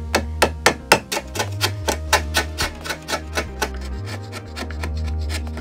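Hand chisel paring and scraping waste from the bottom of a notch cut into a board: quick repeated strokes, about four a second, easing off a little over halfway through. Background music plays underneath.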